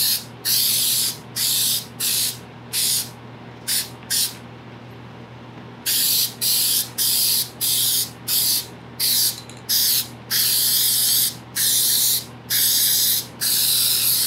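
Aerosol can of spray contact adhesive hissing in short bursts, about two a second, with a pause of a couple of seconds partway through, then longer sprays. The glue comes out in little squirts as a light coat goes onto a headliner board.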